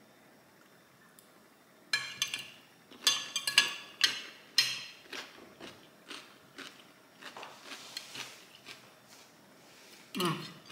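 Eating a salad of raw vegetables: a fork clicking on the plate and crisp crunching bites and chewing, starting about two seconds in and thinning out later, with a short hum near the end.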